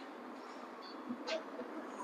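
Steady outdoor street background noise, with a short click about a second and a half in.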